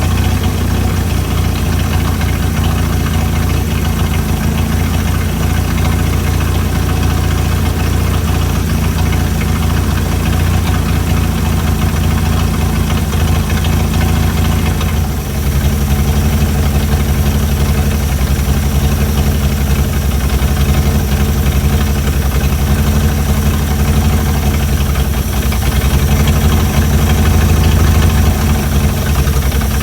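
Chrysler Hemi 265 straight-six idling steadily while its idle is being set. About halfway through the level dips briefly and the engine speed steps up slightly.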